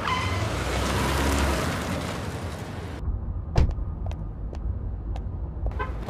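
Nissan Teana sedan driving in with tyre and engine noise that swells and then fades over about three seconds, cutting off abruptly. Then about four sharp footsteps click on paving.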